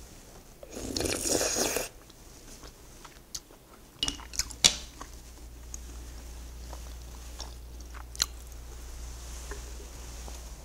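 Close-miked eating of a spoonful of rice cake soup: a loud slurp lasting about a second and a half near the start, then quiet chewing. A few sharp clicks around four seconds in, as the metal spoon is set down on the table, and one more click later.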